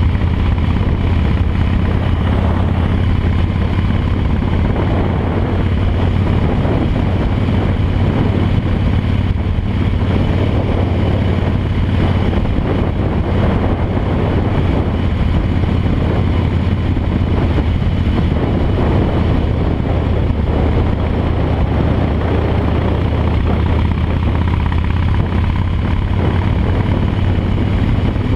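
Harley-Davidson V-twin engine running steadily at cruising speed, with wind rushing over the microphone.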